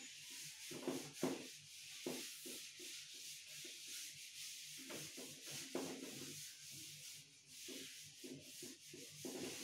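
A duster wiped back and forth across a chalkboard, rubbing off chalk writing in a series of quiet, irregular scrubbing strokes.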